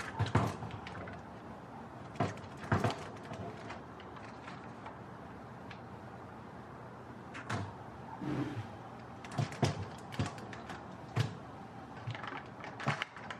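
Glass Weck jar pressing down on small boiled potatoes on a metal baking sheet: irregular knocks and soft squashes, one potato after another.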